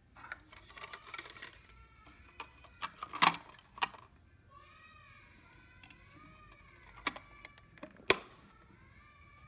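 Plastic clicks and rattles from handling a Fujifilm Instax Mini 9 instant camera's body and back film door, ending with a sharp snap about eight seconds in as the door is pressed shut.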